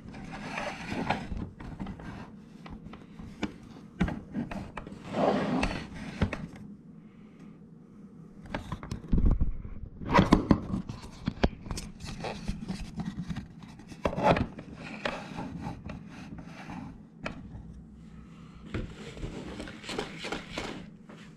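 Irregular scraping, rubbing and knocking of objects being handled on a kitchen counter, in several separate bouts of a second or two with sharp clicks among them.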